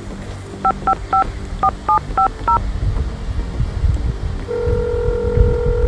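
Phone keypad tones: seven quick two-tone beeps as a number is dialled, then a steady ringing tone of the outgoing call starting about four and a half seconds in. A low rumble runs underneath from about halfway through.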